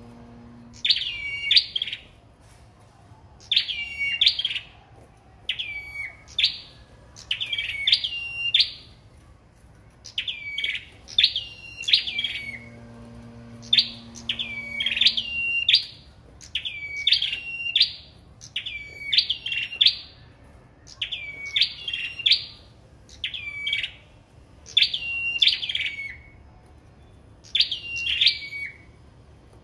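Caged 'sâu đầu đỏ' songbirds singing against each other in a song duel: short, high, chirpy phrases with quick falling notes, repeated every one and a half to two seconds.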